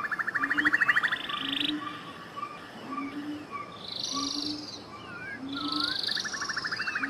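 Chorus of frogs calling: short low croaks repeating about once a second under fast pulsing trills and higher trilling calls, with a few bird-like chirps mixed in.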